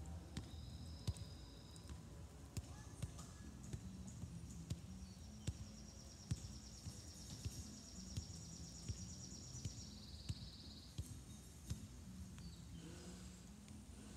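A soccer ball being juggled: soft thumps of foot touches on the ball, about one a second, over a low steady outdoor rumble. High buzzing trills sound in the background, the longest lasting several seconds in the middle.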